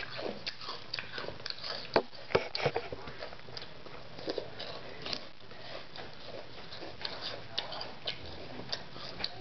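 A metal spoon clicking and scraping against a cereal bowl while a child chews crunchy cereal, with a run of sharp clicks, the loudest about two seconds in.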